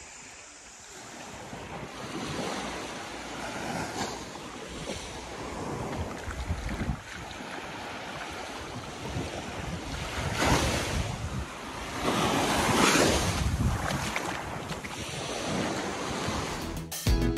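Small waves washing up on a sandy beach, swelling and ebbing several times, with wind buffeting the microphone. Music comes in at the very end.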